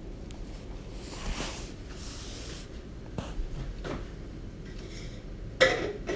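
Scattered small knocks, clicks and rustles of objects being handled, with a louder sharp clatter near the end.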